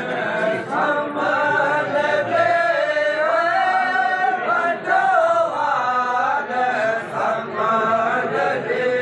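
Voices chanting a melodic tune, with long held notes that bend up and down.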